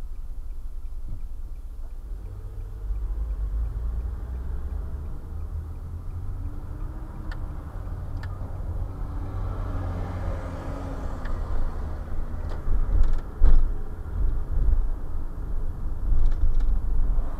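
Road and engine noise of a car driving, picked up by a dashcam's microphone inside the cabin: a steady low rumble, with a few sharp clicks and knocks in the second half.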